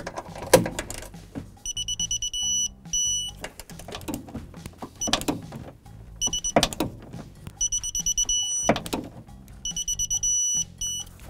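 Digital torque wrench beeping in several groups of rapid high beeps while the strut-mount nuts are tightened to 37 ft-lb. The beeping signals that the set torque is reached. Sharp clicks and knocks from the wrench's ratchet head come between the groups of beeps.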